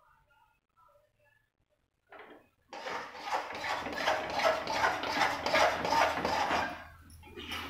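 Metal spoon scraping and knocking against a metal kadhai as thick singhara-flour halwa is stirred hard: a rapid run of strokes, several a second, starting about three seconds in and stopping near the end.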